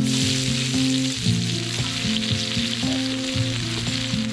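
Stir-fry vegetables tipped into a hot oiled pan, frying with a loud sizzle that starts suddenly and holds steady.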